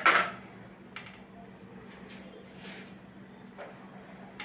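Kitchen utensils knocking on a cutting board and tray: one loud sharp knock at the start, then a few faint taps, over a steady low hum.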